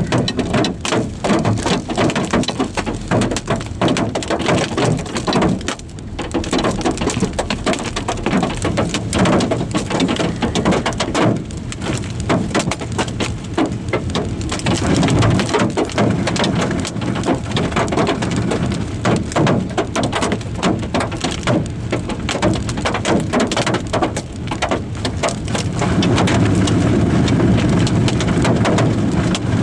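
Hail and heavy rain pelting a car's windshield and roof, heard from inside the cabin as a dense, continuous patter of rapid impacts. It grows louder and heavier about four seconds before the end.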